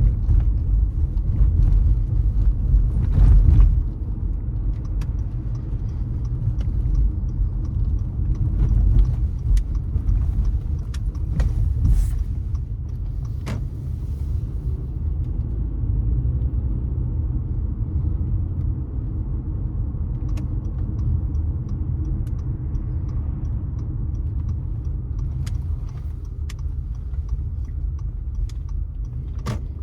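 A car being driven: steady low rumble of engine and tyres on the road, with a few sharp knocks from bumps. A light, evenly spaced ticking runs through two stretches, from about five to fifteen seconds in and again from about twenty seconds in to near the end.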